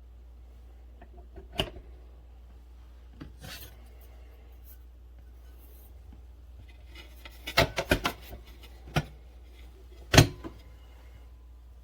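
Scattered knocks and clatter of things being handled, over a steady low hum. There is a quick cluster of knocks about seven and a half seconds in, and the loudest single knock comes just after ten seconds.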